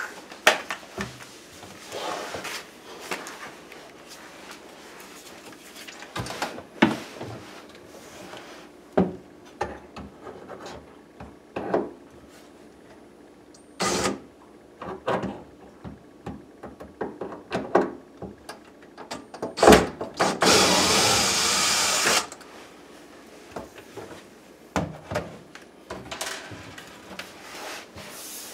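Cordless drill backing out the screws that hold a countertop to the base cabinets: one steady run of about two seconds some two-thirds of the way in, the loudest sound, among scattered knocks and clicks of the drill and hands against the cabinet.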